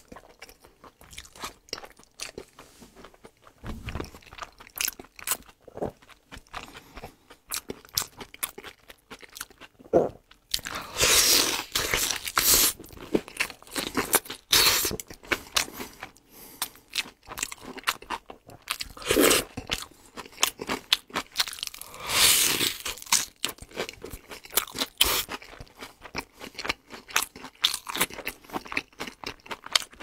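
Close-up eating sounds: crisp crunching bites into a breaded, deep-fried cutlet and wet chewing, with a few louder stretches lasting a second or two near the middle and about two thirds of the way through.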